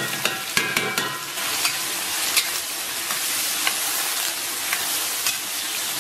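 Sliced bolete mushrooms and pork slices sizzling in hot oil in a wok, with a metal spatula scraping and clinking against the wok as they are stir-fried. The clinks come thickest about half a second to a second in.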